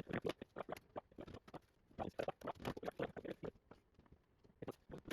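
Hand-handling noises: a quick, irregular run of small clicks, taps and scrapes in several clusters, with short pauses between them.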